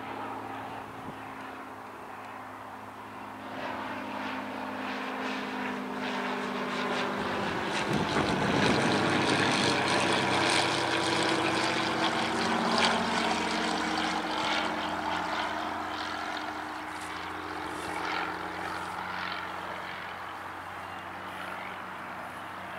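Single-engine Cessna light aircraft on landing approach, its piston engine and propeller droning as it flies low overhead. The drone swells, is loudest about halfway through as the plane passes, then slowly fades as it moves away.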